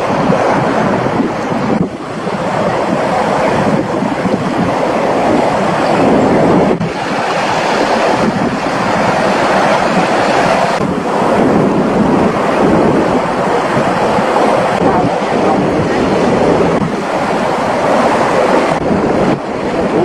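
Sea waves washing and breaking against rocks on the shore, a steady rushing surf with wind buffeting the microphone, changing abruptly every few seconds.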